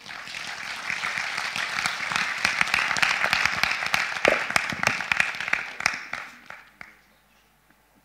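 Audience applauding, swelling to its loudest about three to four seconds in and dying away by about seven seconds.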